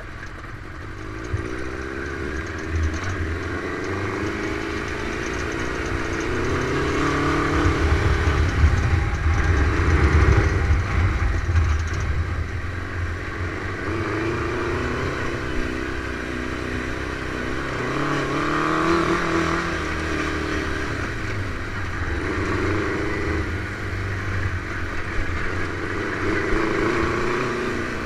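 Dune buggy's Suzuki 600 motorcycle engine heard from the driver's seat while driving over a rough field track. It revs up and eases off again several times as the buggy accelerates and slows, loudest about a third of the way in.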